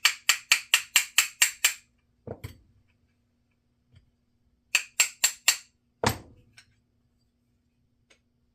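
Hammer tapping a punch in quick, sharp metallic strikes, about four a second, to drive out the corrosion-seized pinion shaft of a Zebco 2020 reel. There is a run of about eight taps, a duller knock, a short run of four taps, and a second duller knock.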